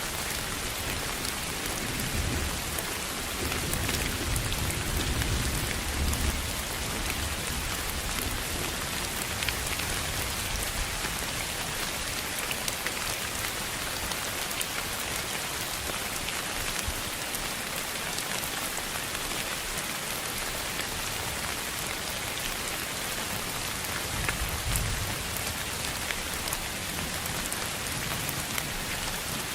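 Steady rain falling, a dense even hiss with fine scattered drop ticks. Low rumbling swells come a few seconds in and again near the end.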